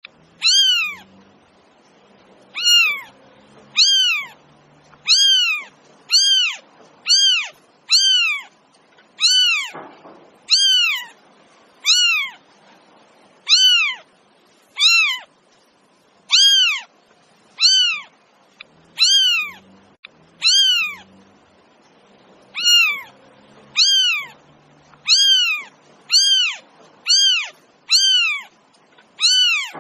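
Domestic cat meowing over and over: about twenty short, high meows, each arching up and then down in pitch and nearly alike, spaced roughly a second or so apart.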